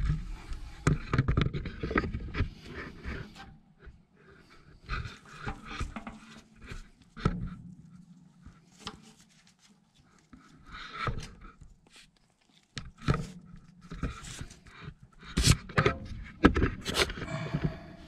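Irregular metallic clicks, knocks and scrapes as the rocker arms of an AMC 327 V8's open valvetrain are pressed down by hand, with the engine not running, to check for a collapsed hydraulic lifter. Breathing close to the microphone throughout.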